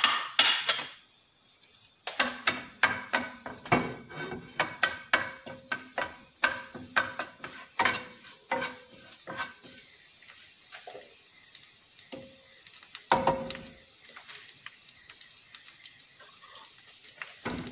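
Curry leaves frying in hot olive oil in a nonstick frying pan, stirred with a wooden spatula that knocks and scrapes against the pan. A short loud burst at the very start, then a quick run of clicks and knocks for several seconds, a single louder knock about thirteen seconds in, and fainter ticks after it.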